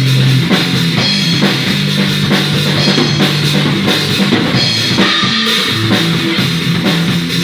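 Rock-style music played on a drum kit with bass and guitar, a steady beat under sustained low bass notes.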